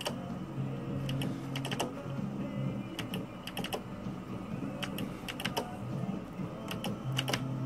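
Novoline Totem Chief video slot machine in repeated spins: steady low electronic tones under short clusters of sharp clicks every second or two, as the start button is pressed and the reels stop.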